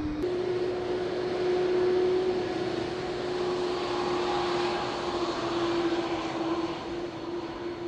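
Jet airliner engines running: a steady whine over a broad rushing noise that swells and eases in loudness. The whine steps up slightly in pitch just after the start.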